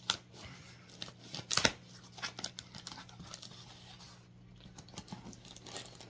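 Scissors snipping and paper or plastic packaging tearing and crinkling as a shipping package is opened by hand: a scatter of short, sharp snips and crackles, the loudest cluster about a second and a half in.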